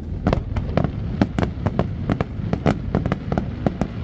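Aerial fireworks display: a rapid series of sharp shell bursts and bangs, several a second, over a continuous low rumble of launches and echoes.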